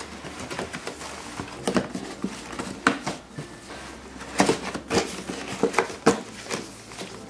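Cardboard being handled and folded by hand, a small meal-kit ingredient box being worked shut, giving scattered taps, scrapes and rustles.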